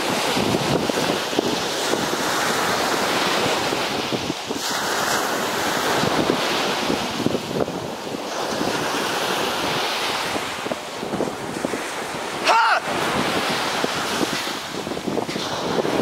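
Surf breaking and washing onto a sandy beach, with wind buffeting the microphone. A short cry rings out about three-quarters of the way through.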